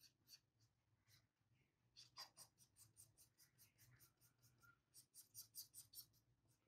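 Faint scratching of a stylus on a drawing tablet in quick, even strokes, about eight a second, as in hatching or shading. There is one run about two seconds in and another near the end.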